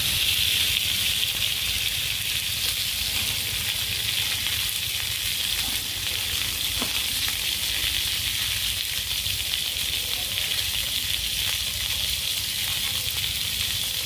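Food frying with a steady, unbroken sizzle.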